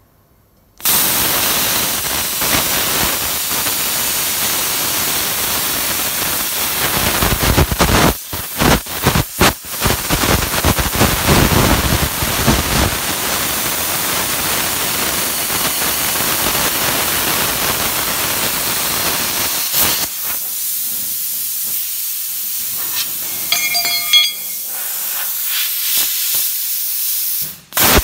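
Handheld plasma cutter cutting through sheet metal: a loud, steady hiss that starts suddenly about a second in, stutters briefly between about eight and ten seconds in, and cuts out for a moment near the end.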